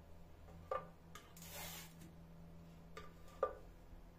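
Plastic spatula sliding baked şekerpare cookies off a parchment-lined baking tray and setting them down in a lined glass baking dish. A short scrape comes about a second and a half in, with a few light taps and knocks; the loudest knock comes near the end.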